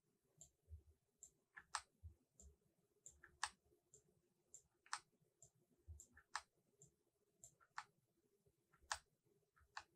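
Faint, irregular clicks of a computer mouse and keyboard, about two or three a second, over a faint steady hum.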